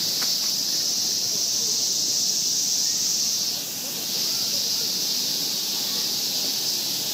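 Steady high-pitched insect chorus, dipping briefly about halfway through, over faint low rustling.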